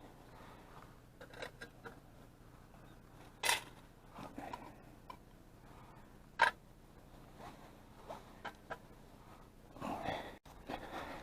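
Scattered light clicks and knocks of gear being handled, with two sharper knocks about three and six seconds in and a short rustling scrape near the end.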